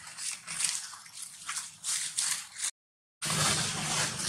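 Dry fallen leaves rustling and crackling in irregular bursts as macaques shift about in the leaf litter. The sound drops out completely for about half a second two-thirds of the way in, then returns denser.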